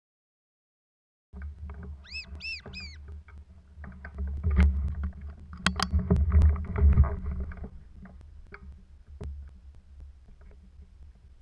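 After about a second of dead silence, low rumbling handling noise from a rifle-mounted camera, broken by scattered sharp clicks and knocks, loudest in the middle. About two seconds in, three short high arched calls sound in quick succession.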